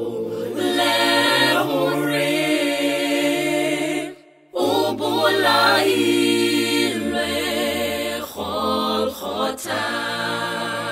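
Small mixed-voice a cappella gospel group singing long-held chords in harmony over a low bass part, with a brief break for breath about four seconds in.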